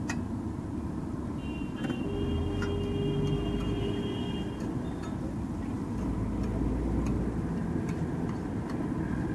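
Metal spatula clinking and scraping on a flat iron griddle as egg bhurji is chopped and stirred, in irregular sharp clinks over a steady low rumble.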